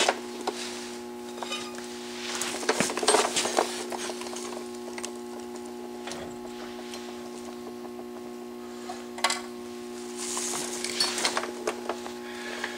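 Metal clinks and scrapes as a brake rotor and hub assembly is handled and slid onto a Dana 44 front axle spindle, in scattered bunches near the start, around three seconds in and again near the end, over a steady low hum.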